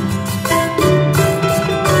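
Instrumental background music with sustained notes and a steady beat.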